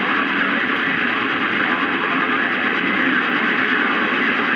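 Steady static hiss from a CB radio receiver on channel 28, with no clear transmission coming through.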